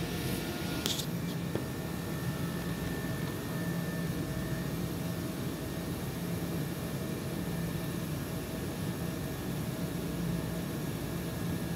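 Steady low machine hum under an even hiss, the hum slowly swelling and fading; a brief sharp click about a second in.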